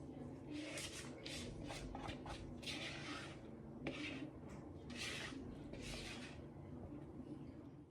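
Faint scraping strokes of a utensil against a mixing bowl, about one a second and irregular, like batter being stirred or scraped out.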